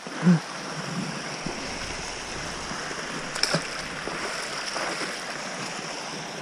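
Steady rushing noise of wind and choppy water lapping at the shore, with a brief vocal sound near the start and a single sharp click about three and a half seconds in.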